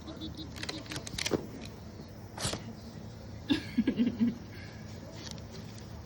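Ferret sneezing: one sharp sneeze about two and a half seconds in, then a quick run of short sneezes and snorts about a second later.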